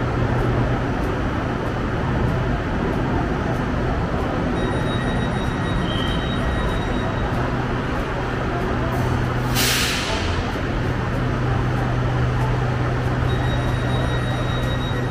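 Electric commuter train of the SRT Red Line running with a steady rumble and low hum, faint high whine tones coming and going. About ten seconds in, a short sharp hiss of released air.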